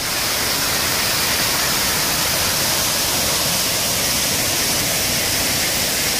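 Small waterfall pouring over rock and rushing down a rocky cascade: a steady, unbroken roar of falling water.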